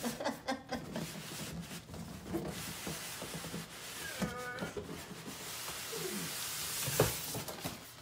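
Large cardboard box scraping and rubbing against styrofoam packing as it is slid up off a portable air conditioner. A short squeak comes about halfway through, and a sharp knock near the end.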